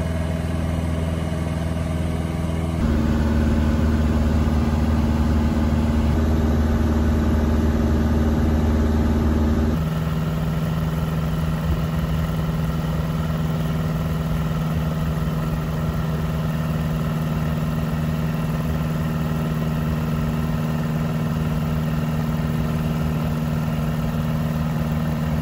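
Piston engine and propeller of a Super Cub–style bush plane, heard from inside the cockpit. It drones steadily in flight, louder and lower-pitched from about three to ten seconds in, then settles to a steady cruise.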